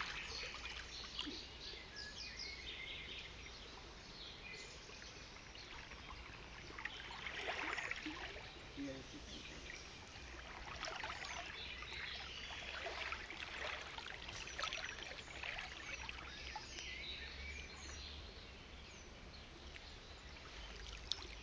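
River water running steadily, with bird calls now and then over it.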